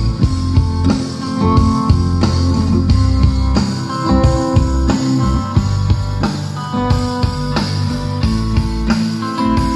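Guitar-led music with a drum kit and strong bass, played through a pair of bookshelf speakers driven by a Fosi Audio BT20A Pro amplifier as a listening test.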